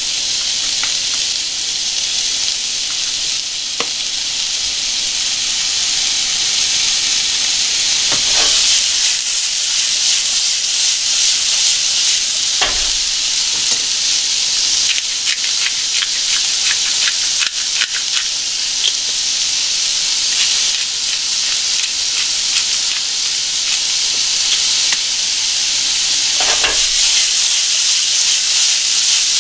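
Sliced onions and sausage sizzling in a frying pan, a steady hiss, with scattered sharp clicks as they are stirred and three dull knocks as the pan is moved and tossed on the burner.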